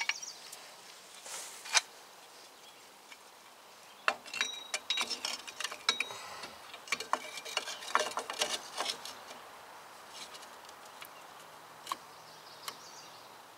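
Light metallic clicks and clinks of rear drum-brake parts being handled and fitted at the wheel hub, scattered irregularly and busiest from about four to nine seconds in.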